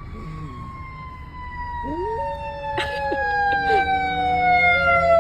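An ambulance siren wails, its pitch falling slowly and steadily. About two seconds in, a dog starts howling along with it at a lower pitch, its howls rising and then holding, imitating the siren.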